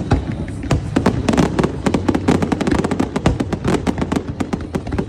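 Fireworks going off in a rapid, dense string of sharp bangs and crackles, many shots a second.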